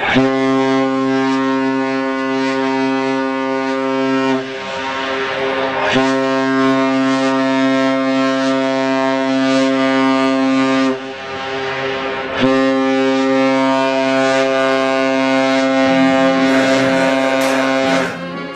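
Goal horn sounding three long, steady, low-pitched blasts of about four to six seconds each, with short gaps between them.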